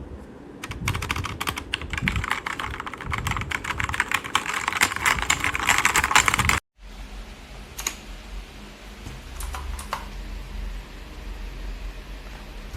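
Typing on a compact 68-key wireless mechanical keyboard: rapid key clicks for about six and a half seconds, then after a sudden break only a few single keystrokes over a low hum.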